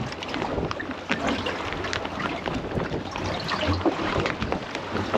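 Wind and a choppy sea slapping against the hull of a small boat at anchor, with scattered small knocks and clicks.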